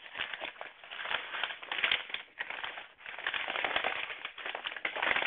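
Rustling and crackling of a cloth-wrapped parcel being handled and unfolded by hand, with a short break about three seconds in.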